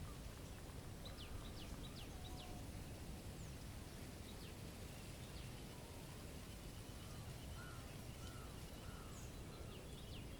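Faint calls of small wild birds: a few quick high chips, then a thin trill and several short arched notes over the second half. A steady low rush of wind runs underneath.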